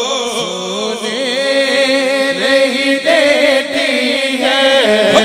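Men singing an unaccompanied Urdu naat through a microphone, a lead voice winding through ornamented melodic lines over a steady held drone from a backing reciter.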